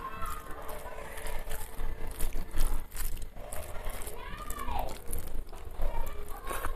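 Bare fingers mashing and mixing rice with egg yolk and curry against a plate: a run of soft irregular clicks and crinkles, ending with a handful lifted to the mouth. A short falling tone sounds in the background a little past the middle.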